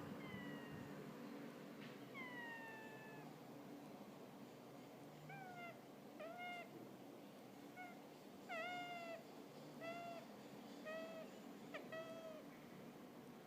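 Hamster squeaking faintly as it snores in its sleep. Two longer high squeaks fall in pitch early on, then a string of short squeaks follows about once a second.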